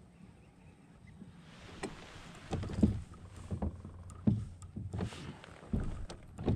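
Irregular knocks and thumps against a fishing kayak's hull as the angler shifts on it, about one every half second to second, starting a couple of seconds in.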